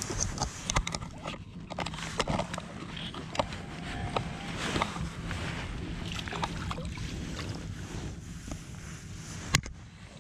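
Scattered clicks and knocks of a baitcasting reel and tackle being handled in a kayak, over a steady low hum and water noise, with one sharper knock near the end.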